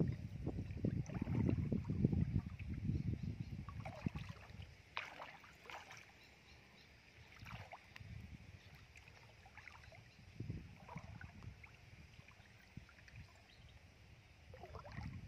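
Legs wading through shallow muddy water, sloshing and splashing, loudest in the first few seconds and again near the end, with scattered small splashes in a quieter middle stretch.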